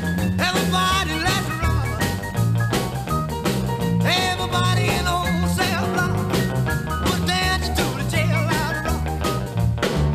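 Upbeat rock and roll music with a steady beat.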